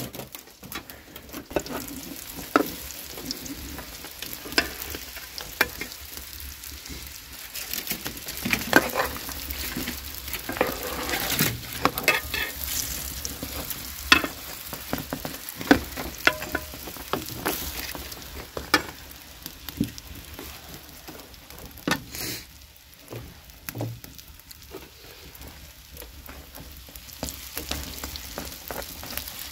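Flat dough cakes frying in oil in a shallow metal pan, sizzling steadily, with a metal spatula scraping and clicking against the pan as they are turned.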